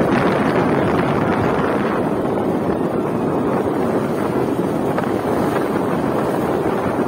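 Steady wind buffeting the microphone on a moving two-wheeler, with the rumble of the ride beneath it.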